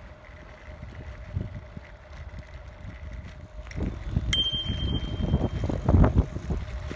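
A bicycle bell rung once about four seconds in, its clear ding dying away over about a second. Beneath it runs a low rumble of wind on the microphone and riding noise, growing louder in the second half.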